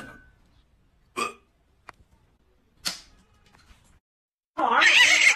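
Two brief sharp sounds about a second and a half apart. Near the end a French bulldog puppy starts barking loudly and continuously.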